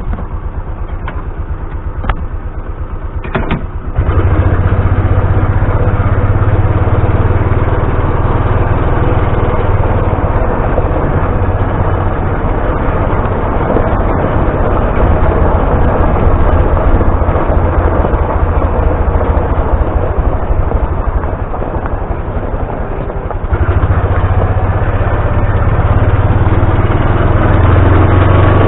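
A motor vehicle's engine idling, then running louder and harder from about four seconds in, easing off briefly near the end before picking up again.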